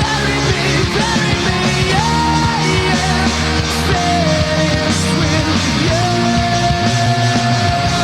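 Loud rock music: a full band playing, with long held sung notes over it.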